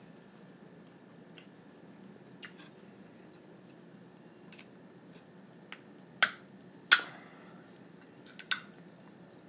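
Boiled lobster claw shell being cracked and pulled apart by hand: a few sharp cracks and snaps, the two loudest about six and seven seconds in, and a quick cluster near the end.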